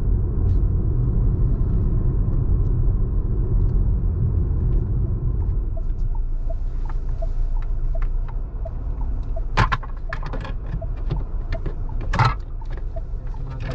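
A car's steady low running rumble, heard from inside the vehicle. From about halfway through, a light regular ticking comes in at roughly two a second, and near the end there are a few sharp clicks and knocks.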